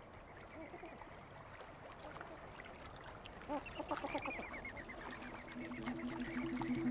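A flock of flamingos calling: many short honking calls overlapping, growing busier and louder. Music comes in near the end.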